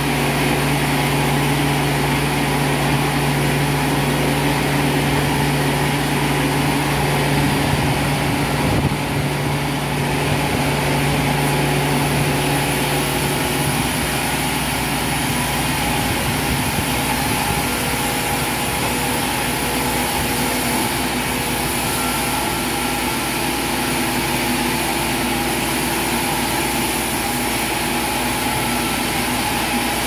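Large band sawmill running and ripping a red oak log: a steady, loud machine drone with the blade sawing through the wood. About halfway through, the low hum drops away and the tone changes as the cut finishes and the saw runs on.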